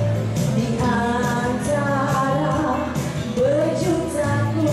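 A woman singing a pop song into a microphone through a PA, holding long wavering notes over a backing track with a steady beat.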